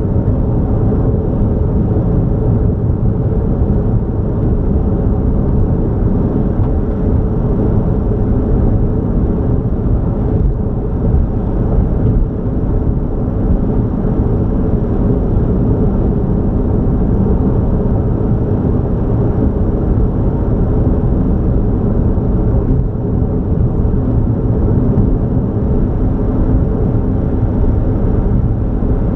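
Steady road and engine rumble of a vehicle cruising on a highway, with a faint constant high whine over it.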